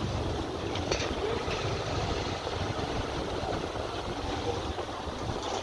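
Motorcycle ridden slowly through a busy street: the low, steady rumble of the bike with wind buffeting the microphone and street bustle behind.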